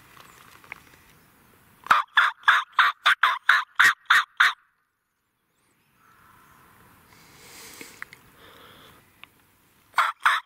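Turkey yelping: a run of about nine loud, evenly spaced notes about two seconds in, and a second run starting near the end.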